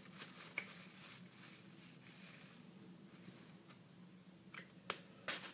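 Faint rustling of a thin plastic shopping bag being handled and drawn on with a marker, with a few light clicks and taps, mostly near the end.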